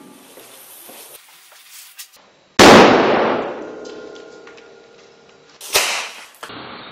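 Small explosive charges set in a clay head sculpture going off as two sharp bangs: the first, about two and a half seconds in, is the loudest and dies away over a couple of seconds; the second comes about three seconds later. A faint pop is heard just before the first bang.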